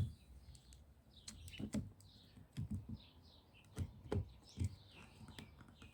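Scattered sharp plastic clicks and light knocks as the side mirror's plastic housing parts are handled and pressed onto their locating tabs, the loudest click at the very start. Birds chirp in the background.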